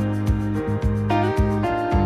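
Background music with a steady beat of about two strikes a second under sustained chords.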